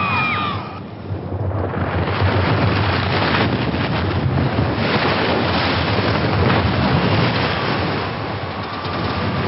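A steady rushing of sea and wind in an ocean soundscape for a sinking ship. It dips briefly about a second in, then swells back and holds.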